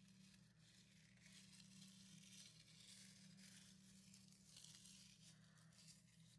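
Near silence: faint room tone with an uneven crackling hiss over a low steady hum.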